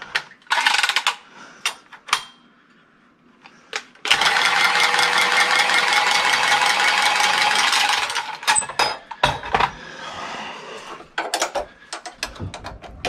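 Milwaukee M12 Force Logic press tool crimping a copper press fitting onto the pipe: a steady motor-and-gear whine for about four seconds that cuts off sharply at the end of the press cycle. Scattered clicks and knocks of the tool and fitting being handled come before and after.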